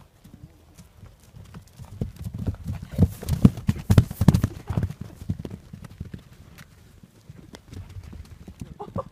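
Hoofbeats of horses galloping over a grass pasture: a rapid run of heavy thuds builds and is loudest about three to five seconds in as one horse gallops close past, then fades as it runs off.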